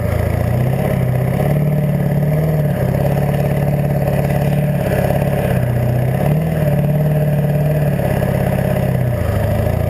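7.3-litre V8 diesel engine running through vertical exhaust stacks, a steady low note that shifts slightly up and down in pitch and drops near the end.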